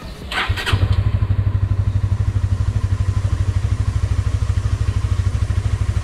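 Honda CBR single-cylinder motorcycle engine started on the electric starter, catching within the first second and then idling steadily with an even low pulse.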